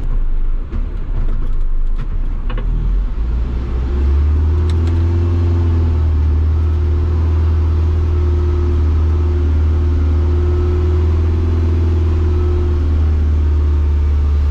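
Mercedes-Benz Unimog's diesel engine running with a steady deep drone. It comes in louder about four seconds in, with a steady whine over it.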